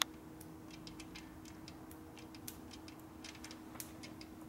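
Weak ignition spark on a 1974 Harley shovelhead, heard as a run of irregular, faint sharp ticks with one louder snap at the start. The spark is real quiet, a wimp, because the condenser is not engaged.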